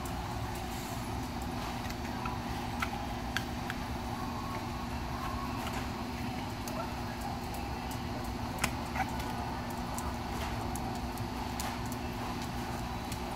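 Steady indoor background hum with a faint low tone under it, and scattered faint clicks and taps.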